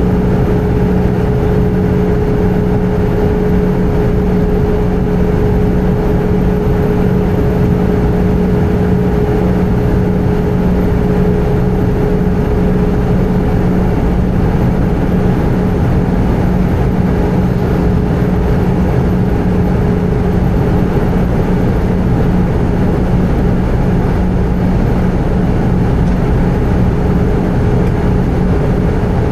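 Airbus A320 cabin noise in flight: the engines and rushing air make a steady, even noise with a constant low hum and a higher steady tone that weakens for a while about halfway through.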